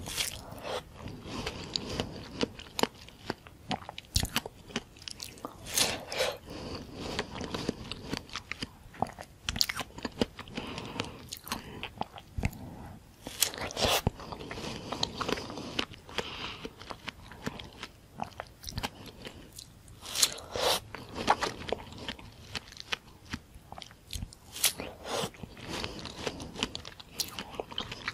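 Mouth sounds of biting into and chewing slices of white-fleshed dragon fruit topped with whipped cream: irregular sharp bites and wet chewing, with louder clusters of bites every several seconds.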